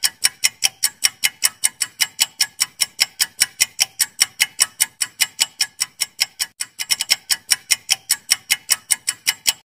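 Countdown-timer ticking sound effect: even, sharp clock-like ticks, about four a second, that stop just before the end.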